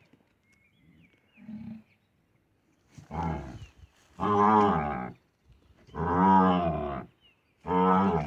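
A calf bawling, its head trapped in a tree hollow. There is a short low call about a second and a half in, then four long bawls in quick succession from about three seconds in.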